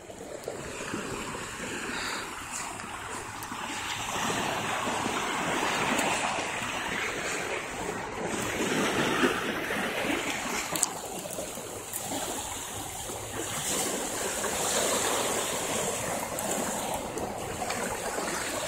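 Small waves washing onto a bay shore, a steady rush of water that swells and eases in slow surges.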